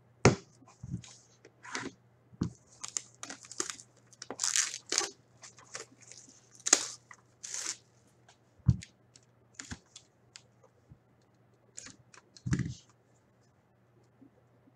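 Plastic shrink wrap being torn and peeled off a sealed hockey trading-card box: a long run of short crackling tears and crinkles. A few dull knocks come from the cardboard box as it is handled, the loudest right at the start.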